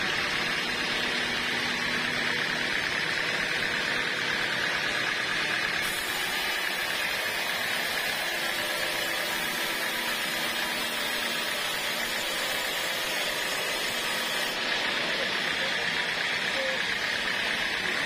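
Band sawmill running, its band blade ripping lengthwise through a large teak cant. A steady machine drone and saw hiss, brighter from about six seconds in until about fourteen seconds.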